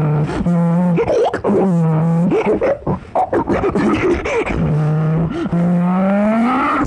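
A person imitating car sounds with their voice: long held engine-like hums broken by short sputtering bits, with a rising pitch near the end like an engine revving up.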